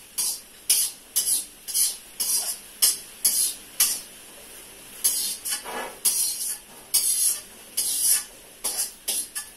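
Slotted steel ladle scraping against a steel kadhai, stirring and scooping frying dal moth lentils in short strokes about twice a second, with a brief pause near the middle.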